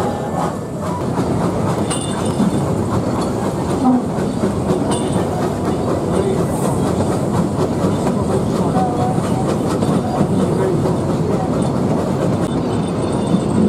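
Puffing Billy narrow-gauge steam train running along the track, heard from one of its open-sided wooden carriages: a steady rattle and clickety-clack of the carriages and wheels on the rails.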